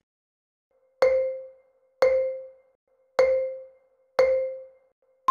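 Quiz countdown timer sound effect: four short, marimba-like pitched taps about a second apart, then a higher ping at the end that marks time up.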